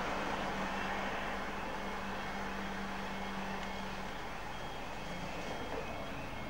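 Light road traffic at a level crossing, with a steady low hum that stops about four seconds in.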